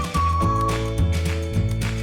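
Cheerful background music with a bouncy bass line on a steady beat and a held high melody note.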